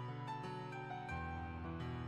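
Soft, slow background music with held notes: a melody steps down, and a low bass note comes in about a second in.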